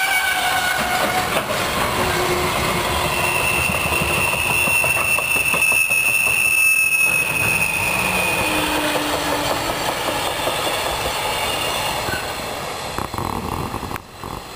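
Loaded container wagons of a freight train rolling past under sudden braking: wheels squealing in several steady tones over a dense, rapid clatter and banging of flat-spotted wheels. The sound fades as the train draws away near the end.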